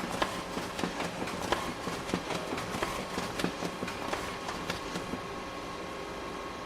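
Photocopier running, its mechanism clicking and clattering rapidly and unevenly; about five seconds in the clicking stops and it settles to a steady hum with a held tone.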